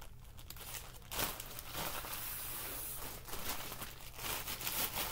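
Plastic mailer bags crinkling and rustling in irregular handfuls as clothes are pulled out and handled.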